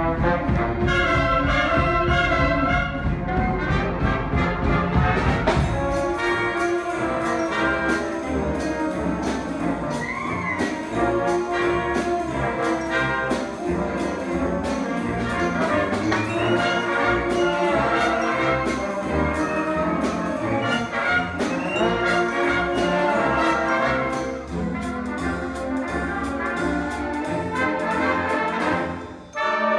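Student concert band playing a swing tune, brass to the fore over a steady drum beat. About a second before the end the band breaks off briefly, then comes back in together.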